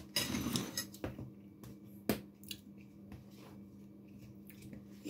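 Dishes and cutlery being handled on a table: a short rustling clatter at the start, a sharp clink about two seconds in, then a few lighter clicks.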